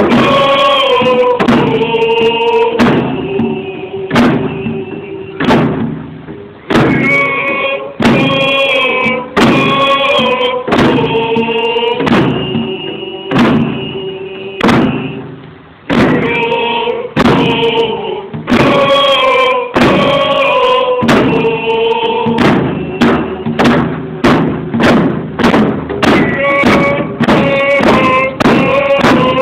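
Native drum song: a group of voices singing in unison over hand drums struck in a steady beat. The singing breaks off briefly twice between verses.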